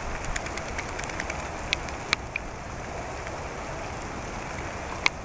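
Steady rain falling, with scattered sharp ticks of single drops landing close by.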